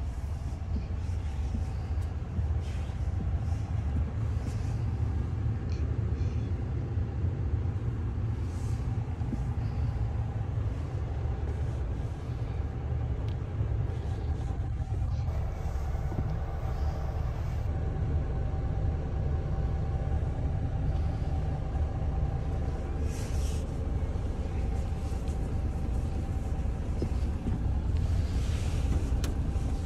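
Coach bus idling, heard from inside the cabin: a steady low rumble with a faint steady hum above it. A few brief faint rustles come and go.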